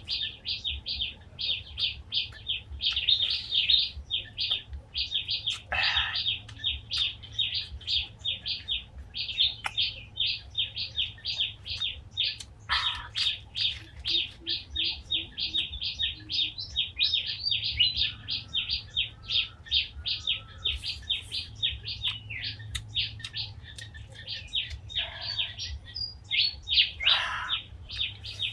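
A bird chirping over and over in a steady rhythm, about three short high chirps a second. A few longer calls drop in pitch now and then.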